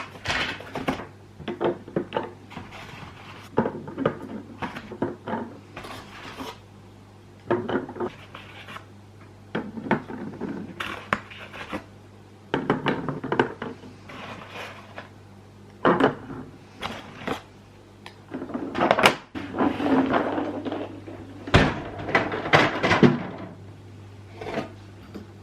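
Containers and food items being handled and set onto refrigerator shelves: irregular knocks, clinks and short bursts of clatter, with a steady low hum underneath.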